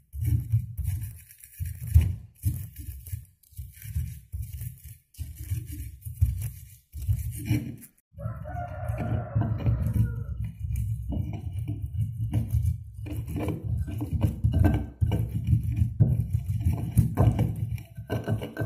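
Stone pestle grinding and pounding fresh garlic, shallots, galangal and chilies into a paste in a volcanic-stone mortar (cobek and ulekan), in rough, uneven strokes. About eight seconds in, a rooster crows once for about two seconds.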